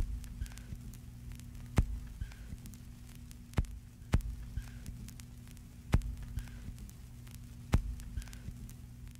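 A steady electrical hum with a sharp click repeating about every 1.8 seconds and fainter ticks in between, like a slow throbbing pulse.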